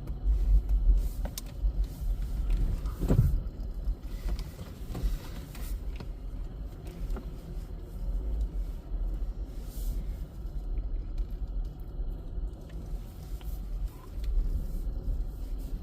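Steady low rumble of a car driving, heard from inside the cabin, with a few light clicks and knocks.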